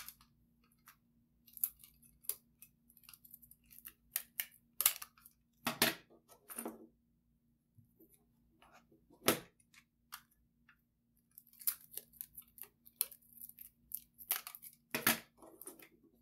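Sticky tape pulled from a plastic desk dispenser, torn off and pressed over a cassette's write-protect notches, with the plastic cassette shell handled: a scattered run of short clicks, taps and rips with brief pauses. Covering the notches is what lets a commercial tape be recorded over.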